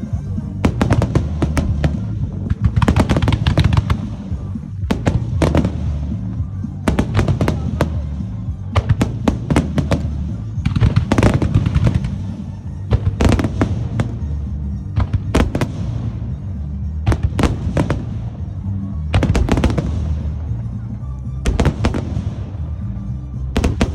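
Fireworks grand finale in a music starmine: rapid clusters of bursts and crackling reports, coming in waves every second or two, over loud music playing from loudspeakers.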